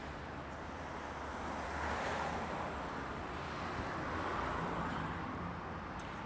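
Wind buffeting the microphone outdoors, a steady rushing noise that swells twice, about two seconds in and again near the end.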